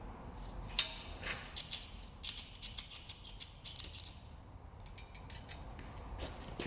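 An irregular run of light, sharp metallic clicks and clinks from tools or equipment being handled, over a low background hum.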